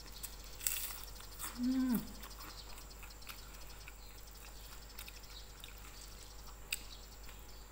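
Close-up eating sounds of a person chewing and eating rice by hand: scattered soft mouth clicks and smacks, with one short voiced 'mm' that falls in pitch about a second and a half in.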